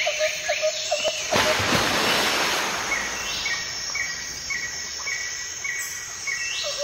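Outdoor ambience with repeated animal calls: a short low note repeats about three times a second for the first second or so. Then a steady hiss takes over, with a short high note repeating about twice a second.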